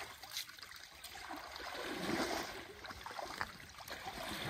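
Shallow water sloshing and trickling as a fishing net full of fish is worked by hand, with a few small splashes.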